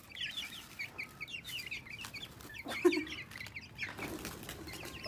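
Young chicken chicks peeping continuously in many quick, high, falling chirps, with a single louder, lower sound about three seconds in.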